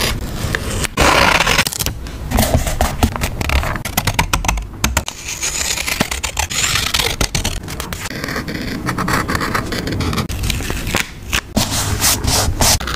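Close-up handling of paper and stickers while a journal page is made: irregular scraping and rubbing, with many small clicks and taps.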